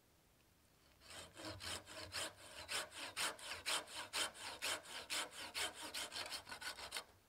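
Hand pruning saw cutting through a small branch in quick back-and-forth strokes, about four a second. The sawing starts about a second in and stops shortly before the end.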